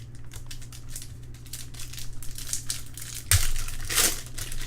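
Trading cards being handled by hand, with rustling and crinkling of card packaging and a run of quick clicks as cards are shuffled. There is a louder rustle about three and a half seconds in, and a steady low hum throughout.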